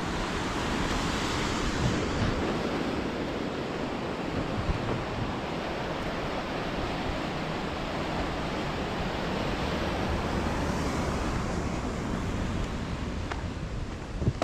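Ocean surf washing against a rocky shoreline in a steady rush, with wind buffeting the microphone.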